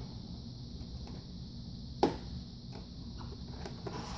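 A cardboard toy box handled on a table: one sharp knock about two seconds in, then a few light taps, over a steady low room hum.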